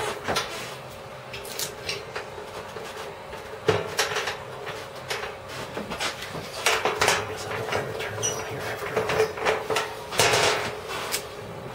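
Repeated sharp clicks and light metallic clatter from a portable gas camp stove being handled and its burner lit with a hand-held lighter. A steady faint hum runs underneath.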